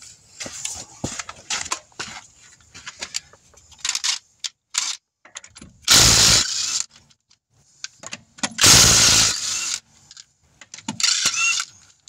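Ryobi cordless impact wrench hammering lug nuts off a car wheel in two short runs, about six and nine seconds in, with light clicking and clattering of the socket and nuts between them. The nuts come off easily: they were loose.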